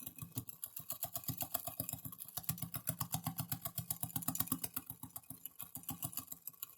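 Hand beater whipping a thick paste of instant coffee, sugar and water in a bowl: rapid, even clicking as the beater strikes the bowl, with a brief break a little past two seconds. The mixture is early in its beating, still dark and not yet fluffy.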